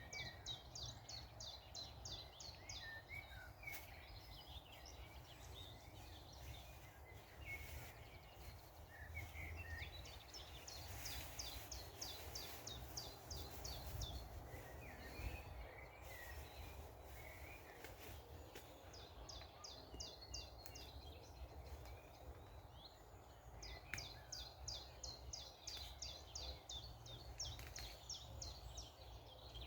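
A small songbird singing bouts of rapid, evenly repeated high notes, four separate bouts, over a faint low rumble of wind or distant noise.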